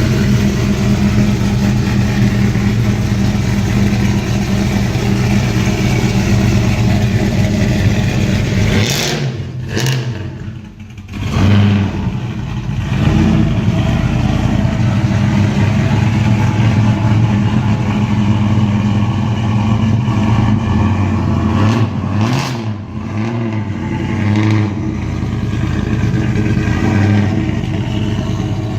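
A vehicle engine running steadily. Its note shifts about ten seconds in and wavers briefly a little past twenty seconds in, as when it is revved.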